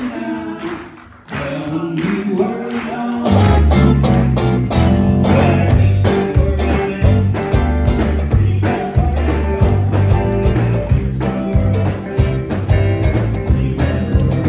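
Live rock band with electric guitars, bass guitar and drums, and a singer's voice fading at the start. After a brief drop about a second in, the bass and drums come in hard at about three and a half seconds and the full band plays on.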